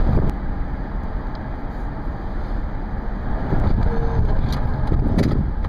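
Wind rushing over the microphone while cycling along a road, with a steady low rumble of road traffic.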